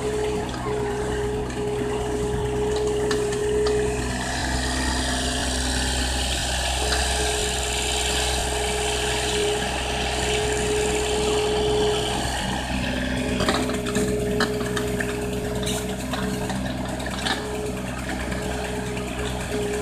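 Backhoe's diesel engine running steadily with a high hydraulic whine that comes and goes, and a cluster of knocks and rattles of stone about two-thirds of the way through.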